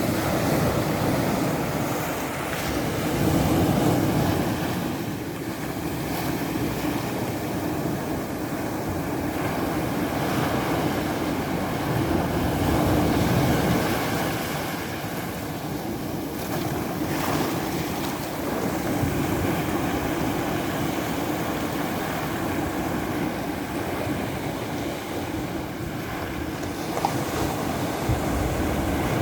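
Ocean surf: waves washing onto the shore in a continuous rush that swells louder and ebbs as the waves come in.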